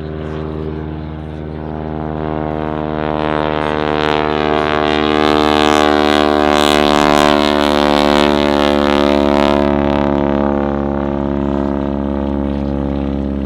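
Boeing Stearman Kaydet biplane's radial engine and propeller droning steadily on a low pass. It grows louder to a peak about halfway through, then eases off slightly.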